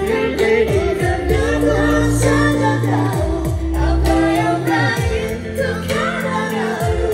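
A pop song with a sung vocal over a steady beat and bass.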